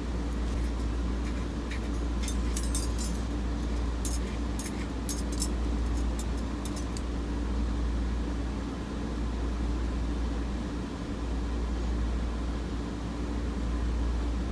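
Light clinks and ticks from watercolor painting tools, over a steady low rumble. The clinks come in a scattered run through the first seven seconds or so, one sharper than the rest.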